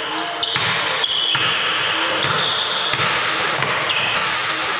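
A basketball bouncing on a hardwood court, with several short, high squeaks of sneakers on the floor as the players move.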